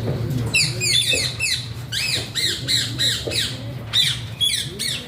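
Alexandrine parakeet giving a rapid string of harsh squawks, short calls that each rise and fall, coming in quick runs from about half a second in. A low steady hum runs underneath.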